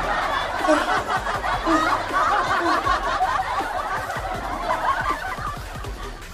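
Laughter that gradually fades away.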